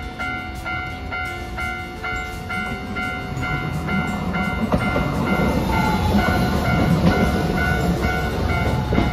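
Level-crossing warning bell ringing in an even repeating pattern, about three strokes a second. A Hiroshima Electric Railway 5200-series Green Mover Apex low-floor tram approaches and runs past close by, its rumble building from about three seconds in.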